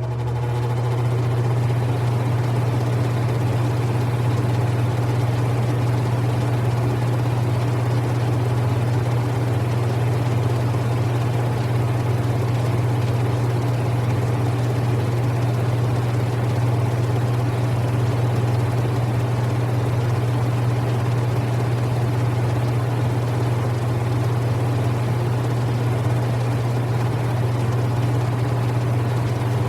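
Air conditioner running after switching on: a steady low hum under an even rush of fan noise, swelling during the first second and then holding constant.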